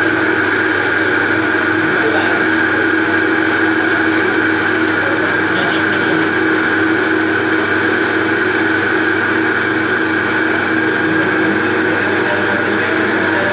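Metal-turning centre lathe running, a steady machine hum with a constant whine from its motor and gearing.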